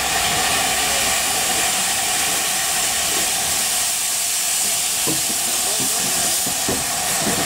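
Steam locomotive, the A4 pacific 60009 Union of South Africa, standing with a loud, steady hiss of escaping steam.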